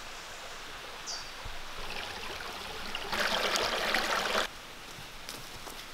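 Small woodland stream trickling over rocks, louder for about a second and a half midway, then cut off suddenly, over a quiet outdoor background with one short bird chirp about a second in.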